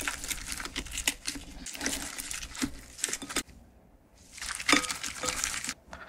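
Crisp fried chicken drumsticks being tossed in carbonara buldak sauce: a dense, sticky crackling and rustling that pauses about three and a half seconds in and starts again briefly near the end.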